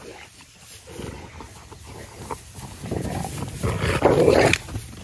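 Dogs growling as they play-fight. The rough growling swells about three seconds in and is loudest just before the end.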